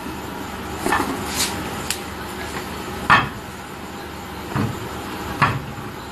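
Scattered light knocks and clicks of handling, about six over a few seconds, as a person moves about and works at a car's front wheel, over a steady background noise.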